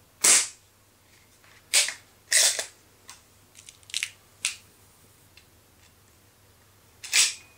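Baikal IZH MP-53M .177 spring-piston break-barrel air pistol, its mainspring tuned and greased with moly: a sharp shot just after the start, then two loud clacks and a run of small clicks, then another sharp crack near the end.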